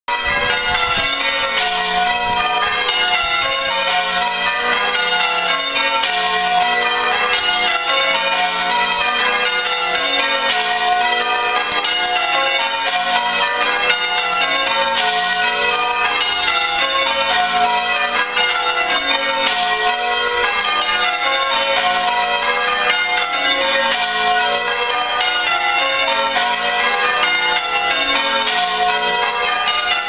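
Church tower bells ringing: a continuous, rapid succession of overlapping bell strokes at a steady loudness.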